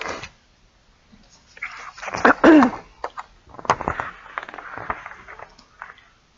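A woman sneezing once, about two seconds in. Soft paper rustling and clicks follow as the pages of a picture book are handled.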